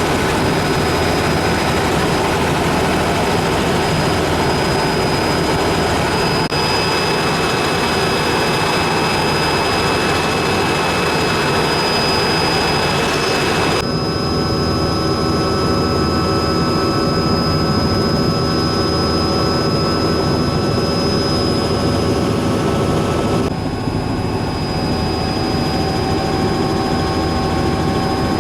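Helicopter cabin noise: a loud, steady engine and rotor drone with a high, steady whine over it. The sound changes abruptly three times.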